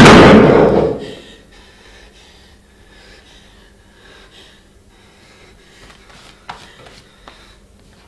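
A loud rush of rumbling noise fades out about a second in. It leaves a quiet room with faint breathing, a sharp tap about six and a half seconds in and a lighter one shortly after.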